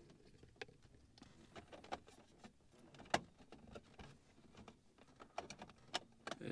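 Faint scattered plastic clicks and handling as a map-light lens cover is fitted and pressed into the overhead console of a 2000 Ford Explorer, with a sharper click about three seconds in and a small cluster of clicks near the end.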